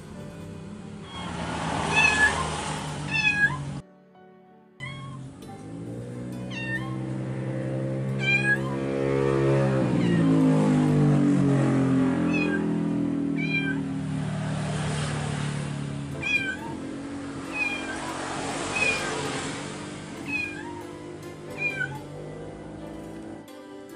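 A cat meowing again and again, short high meows every second or two, over soft background music.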